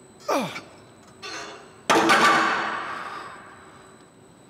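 Sounds of a heavy set on a chest-supported T-bar row machine: a short falling sound just after the start, a smaller burst about a second in, then a loud sudden sound a little under two seconds in that fades away over about a second.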